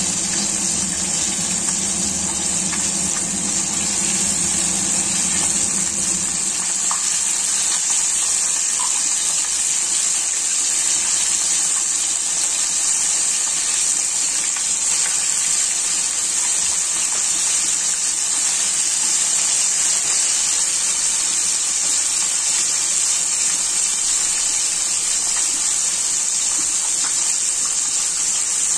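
Flour-coated chicken wings deep-frying in hot oil in a wok: a steady, even sizzle. A low hum underneath stops about six seconds in.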